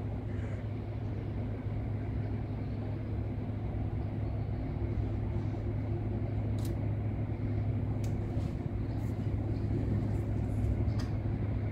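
Low, steady drone of the passing cruise ship Balmoral's engines, with a few faint clicks in the second half.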